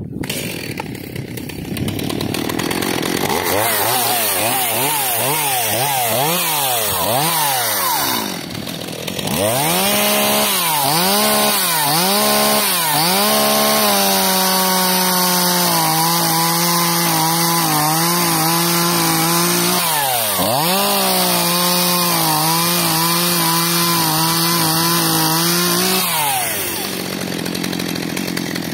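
Stihl MS 181 chainsaw's small two-stroke engine, newly fitted with a replacement carburettor and still being run in, revving up and down in quick blips, then held at high revs while the chain cuts through birch logs. The revs dip briefly about twenty seconds in and fall away near the end.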